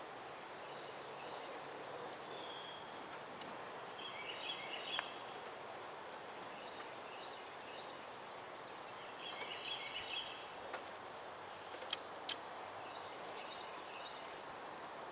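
Steady outdoor background hiss with a bird calling: a short burst of chirping notes repeated every four to five seconds. Two sharp clicks about twelve seconds in.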